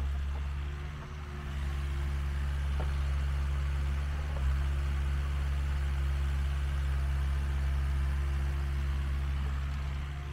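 Compact excavator's diesel engine running steadily while it digs. There are a couple of light knocks about three and four and a half seconds in.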